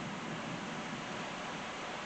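Steady rain shower falling on a wet driveway and trees: an even hiss with no breaks.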